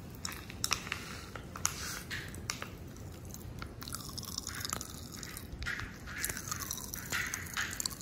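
A domestic cat sniffing close to the microphone, short hissy breaths in bursts with scattered small clicks.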